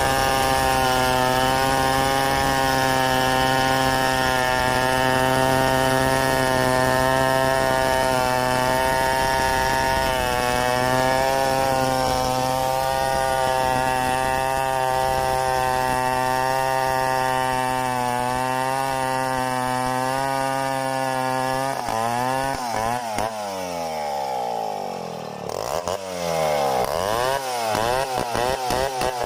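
Stihl 070 two-stroke chainsaw running at steady high revs while freehand-milling a log lengthwise. About two-thirds of the way through, its engine speed starts swinging up and down, dips briefly, then rises and falls repeatedly.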